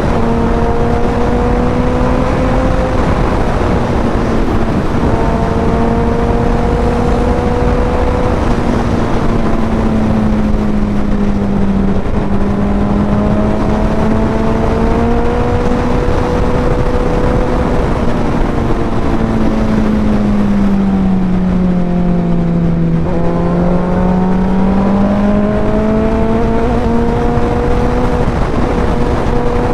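Suzuki Hayabusa's inline-four engine with an aftermarket Racefit exhaust, heard from the rider's seat at highway speed. Its note rises and falls with the throttle, sinks lowest about three quarters of the way through, then climbs again. Heavy wind and road rush runs underneath.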